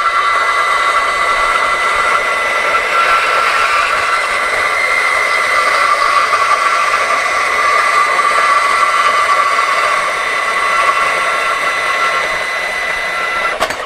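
Makita GBP01 40V brushless cordless band saw with an 18-tooth blade running through rectangular steel tubing: a steady, high-pitched whine of the blade and motor over the rasp of the teeth in the steel, which cuts off abruptly near the end. With the right blade for the steel, it cuts smoothly.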